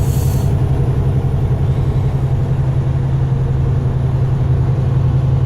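Truck engine running steadily, heard from inside the cab while driving: a constant low drone with a strong even hum.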